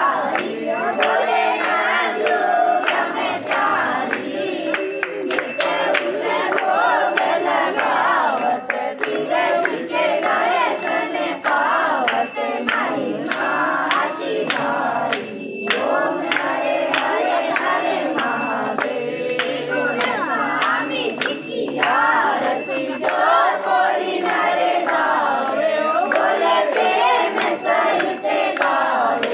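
Temple aarti: a group of worshippers singing together, with bells ringing and hands clapping along.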